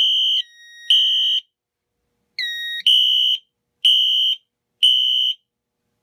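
Fire alarm horn strobe sounding in the temporal-3 (code 3) evacuation pattern during a panel drill: a loud, high electronic beep three times, each about half a second, then a pause of about a second and a half before the next group. A quieter, lower tone sounds briefly between some of the beeps.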